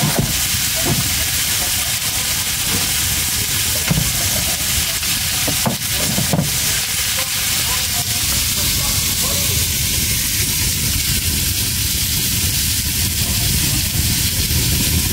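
Salmon frying in a pan: a steady, loud sizzle, with a few short knocks in the first half.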